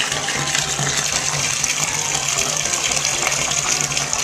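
Water pouring from a bathtub tap into a partly filled tub, a steady gushing with a low hum underneath.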